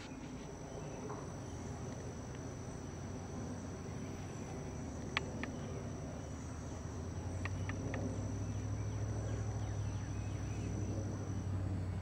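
An insect trilling steadily at a single high pitch, stopping shortly before the end. Beneath it is a low rumble that grows louder about seven seconds in, with a few faint sharp ticks.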